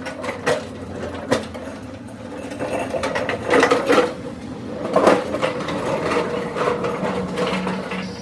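Metal-on-metal workshop clatter from work on a truck rear axle: scattered clicks and knocks, with two denser rattling runs in the middle, over a steady hum.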